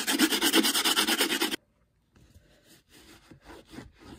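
A stiff-bristled shoe-cleaning brush scrubbing the leather upper and sole edge of an Air Jordan 1 in fast, even back-and-forth strokes. The scrubbing cuts off abruptly about a second and a half in, leaving faint rustling as the insole and a cloth are handled.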